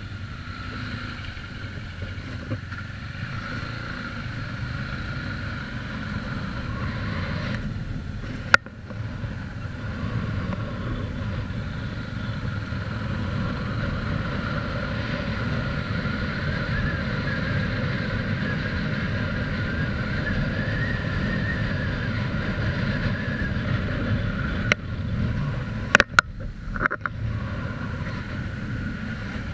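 Yamaha YBR 250's single-cylinder engine running while riding, with wind and road noise on the mounted camera's microphone. The engine note rises and falls slightly midway. There are sharp knocks about eight seconds in and a few more near the end.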